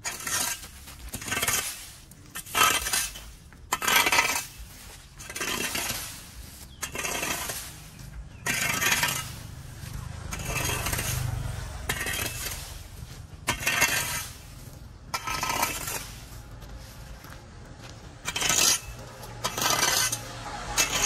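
Metal rake dragged in repeated strokes over dry leaves and concrete paving, its tines scraping and rustling about once a second at an uneven pace.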